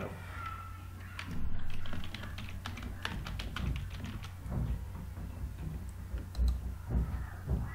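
Typing on a computer keyboard: a quick, uneven run of key clicks over a steady low hum.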